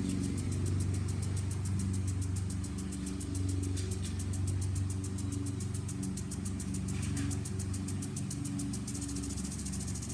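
A lawn mower engine running steadily, with a lawn sprinkler's rapid, even ticking on top, about seven ticks a second, that stops about nine seconds in.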